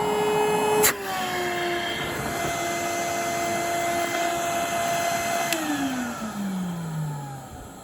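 Numatic Henry HVR200 vacuum cleaner motor running with a high-pitched whine, the sign of a well-used motor. A click about a second in and the pitch settles slightly lower; about five and a half seconds in another click, and the whine glides down as the motor is switched off and winds down.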